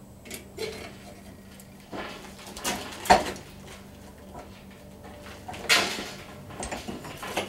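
Metal clinks and scrapes of blacksmith tongs gripping and twisting a round steel bar clamped in a bench vise. Several sharp clanks, the loudest about three seconds in and another near six seconds, over a low steady hum.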